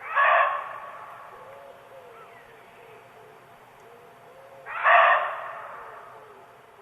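Muntjac deer barking twice, about four and a half seconds apart: each bark is a single loud, sharp call that fades away slowly as it echoes through the forest.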